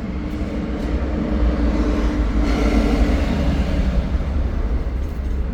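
Steady low vehicle rumble with a hum that fades out about two and a half seconds in, swelling louder in the middle.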